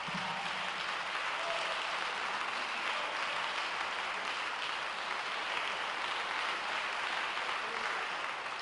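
Audience applauding steadily in a concert hall at the end of a song.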